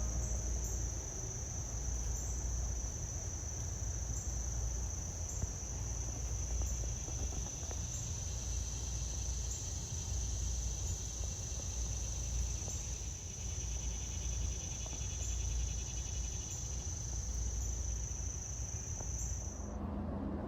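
Crickets trilling steadily in a single high-pitched continuous chorus over a low rumble, with a fainter pulsing trill joining partway through; the chorus cuts off suddenly near the end.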